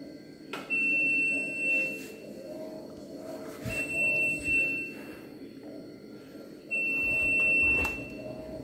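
IFB Executive Plus 8.5 kg front-loading washing machine sounding its end-of-cycle alert: three long, steady high beeps, with a low hum throughout. Near the end the door latch clicks as the door is pulled open.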